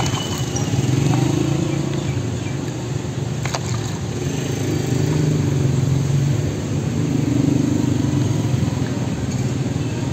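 Street traffic: vehicle engines running with a steady low hum that swells and fades, plus a single sharp click about three and a half seconds in.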